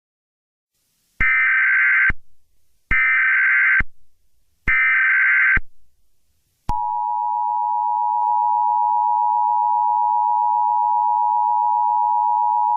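Emergency Alert System tones. Three SAME header bursts of screeching digital data, each about a second long, are followed about 6.7 s in by the steady two-tone EAS attention signal (853 and 960 Hz), which runs on unbroken.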